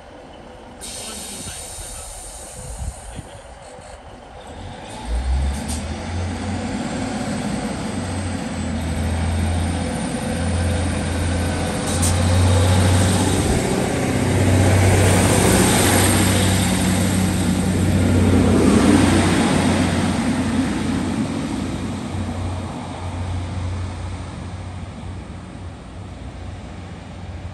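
Class 156 Sprinter diesel multiple unit pulling out of the station: its underfloor diesel engines open up about five seconds in with a low throb, grow louder as the train gets moving, then fade as it draws away down the line.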